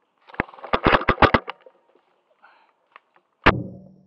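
A quick run of about eight sharp clicks over a second or so, then a single loud crack about three and a half seconds in with a brief low thud after it, typical of an airsoft sniper rifle firing.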